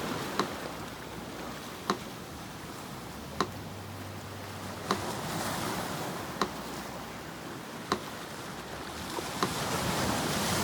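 Metronome ticking slowly, one sharp click about every second and a half, over the steady wash of sea surf, which swells louder near the end.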